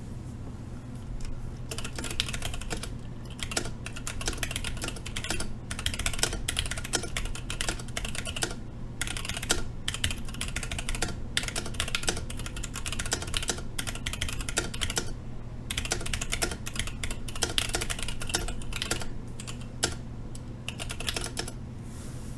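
Typing on a Sentraq S60-X 60% mechanical keyboard with Gateron Clear linear switches: quick runs of key clicks starting about a second and a half in, with a few short pauses.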